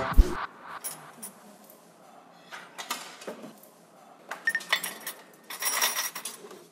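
Metal spoons and cutlery clinking and scraping on stainless steel cafeteria trays as people eat, in scattered light clinks.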